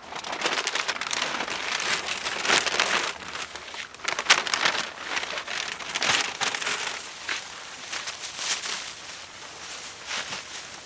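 A bag being packed: irregular rustling and crinkling with small clicks and knocks as things are handled and pushed in, busiest in the first half, with a sharp knock about four seconds in, then quieter handling.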